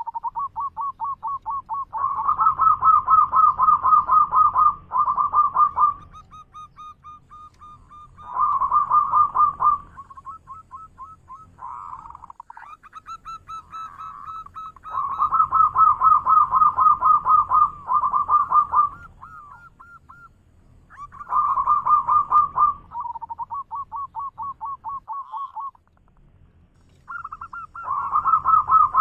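Zebra dove (perkutut) singing its loud manggung song: rapid runs of staccato cooing notes in phrases of one to several seconds, with short pauses between phrases.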